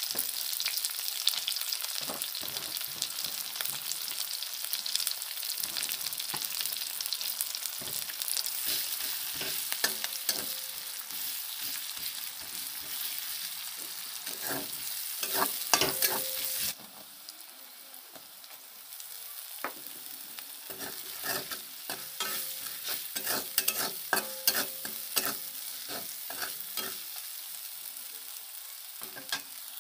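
Sliced onions sizzling in hot oil in a metal wok, with a spatula scraping and clinking against the pan as they are stirred. The sizzle drops suddenly a little past halfway and carries on more quietly, with bursts of stirring strokes.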